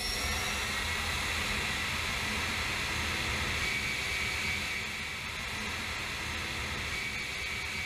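Military jet engine running on a hush-house test stand: a steady rush of noise with a faint high whine. It drops slightly in level about five seconds in.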